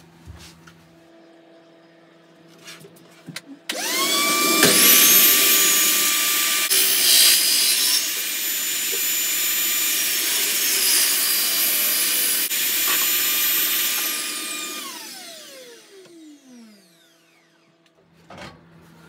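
A benchtop table saw is switched on after a few light knocks and whines up to speed. It runs for about ten seconds while it cuts through the sides of a pine box to part the lid from the body. It is then switched off and winds down with a falling whine.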